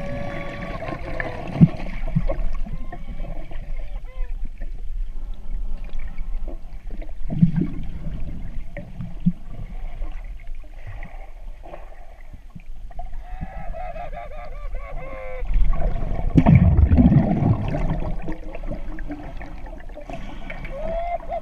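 Underwater sound as picked up through a camera housing: a muffled low rumble of water with low thumps, heaviest about two-thirds of the way through, and a few wavering, honk-like pitched tones near the start, in the middle and near the end.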